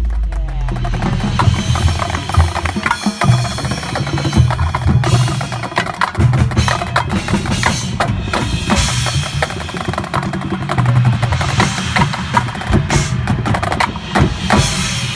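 Marching band percussion section playing a loud drum passage: rapid snare drum strikes and rolls over tuned bass drums changing pitch.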